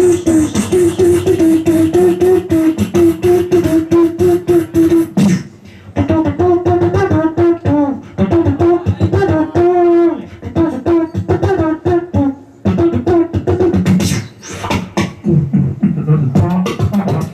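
Solo human beatboxing into a handheld microphone: rapid mouth-made kicks, snares and clicks over a held hummed bass tone. The beat breaks off briefly about five and a half seconds in and again about twelve seconds in, and the hummed line drops lower near the end.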